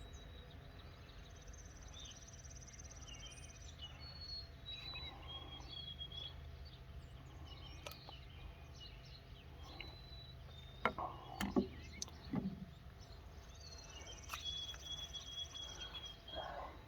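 Outdoor ambience: birds chirping and a high insect-like trill that comes twice, over a steady low rumble, with a few brief clicks and knocks about two-thirds of the way through.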